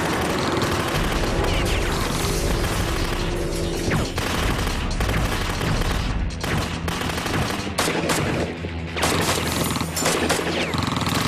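Tavor assault rifles firing rapid bursts of automatic suppressive fire, with shots crowding together, over dramatic background music.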